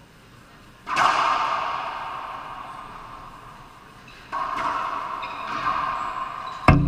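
Racquetball shots during a doubles rally: sharp cracks of ball on racquet and walls, each ringing and echoing for a few seconds in the enclosed court. A loud hit comes about a second in, another about four seconds in, and a heavier thud near the end.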